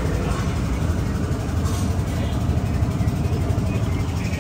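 Steady low rumble of an idling heavy engine, running evenly throughout.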